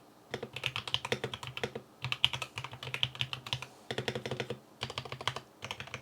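Typing on a custom mechanical keyboard with stock, factory-lubed Gateron CAP V2 Milky Yellow linear switches: quick runs of keystrokes with short pauses between bursts, a little scratchy with no spring ping.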